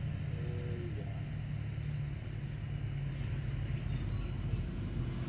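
Steady low hum of an engine running at idle.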